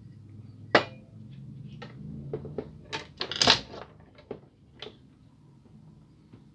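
Plastic clicks and knocks as the OPC drum is lifted out of a Kyocera DK-150 imaging unit and the empty plastic drum housing is handled. A sharp click about a second in, then a quick cluster of knocks and rattles, loudest around the middle, with a few lighter taps after.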